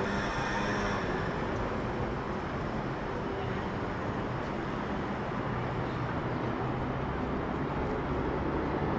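City street traffic: a steady rumble of vehicle engines and road noise.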